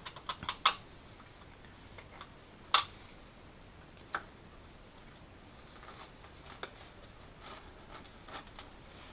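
Sparse, irregular light metallic clicks and taps of a socket and small nut as the 13 mm nut comes off the alternator's battery-cable terminal stud: a quick cluster at the start, then single clicks every second or two.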